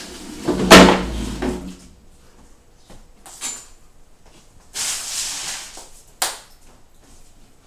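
Flat-pack kitchen cabinet panels being handled and moved: a loud scrape with a low rumble about a second in, a shorter rustle and scrape around five seconds, and one sharp knock a little after six seconds.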